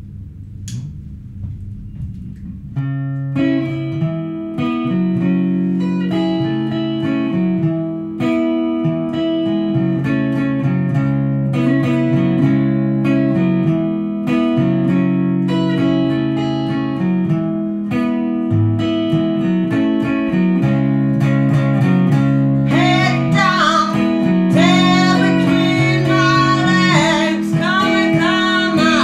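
Blues song on guitar with a capo: a picked guitar pattern starts about three seconds in and keeps a steady rhythm, and a singing voice comes in after about twenty seconds.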